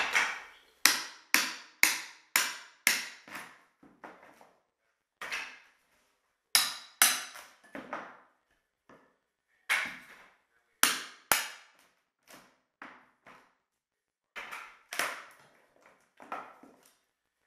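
Hammer blows on hardwood floor strips as they are knocked loose and torn up. A run of sharp strikes comes about two a second, then irregular knocks and clatters of loose boards.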